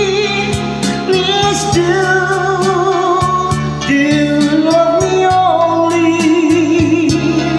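A man singing a high ballad with vibrato over an instrumental backing track, reaching for belted high notes.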